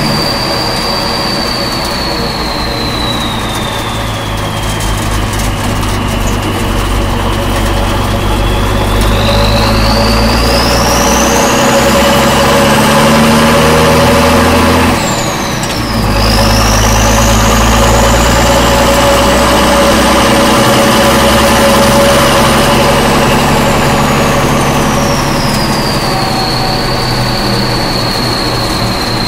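1967 M35A2 2½-ton army truck's multifuel diesel engine running under way, heard from inside the cab. A high whine over the rumble rises and falls with engine speed. About halfway through, the rumble breaks off briefly and the whine drops, then both climb again.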